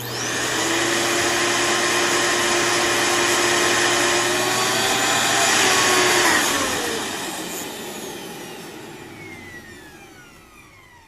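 Vacuum cleaner switched on, its motor running with a steady whine, then switched off about six seconds in, the whine falling in pitch and fading as the motor winds down.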